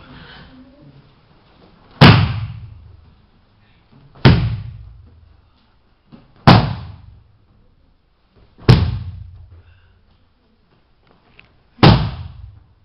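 Martial-arts breakfalls: a body landing and the arms slapping the padded mat, five loud slaps about two to three seconds apart, each ringing on briefly in the hall.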